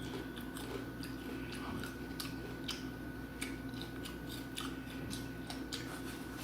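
Close-up mouth sounds of someone eating fried chicken: irregular wet smacks and crunchy clicks of chewing, over a steady low background hum.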